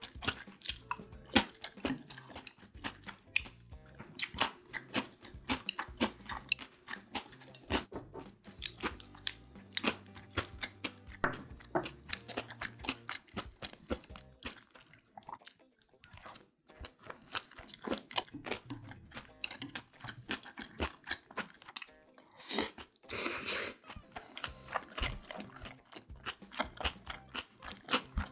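Close-miked chewing and biting of kimbap: a dense run of wet mouth clicks and crunches. A longer, louder noisy sound comes about three-quarters of the way through.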